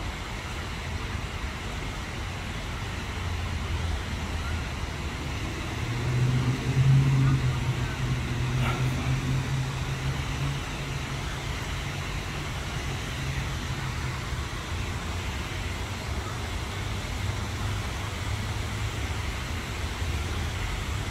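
Steady road-traffic noise, with the low hum of a passing vehicle's engine swelling louder about six seconds in and fading by about ten seconds.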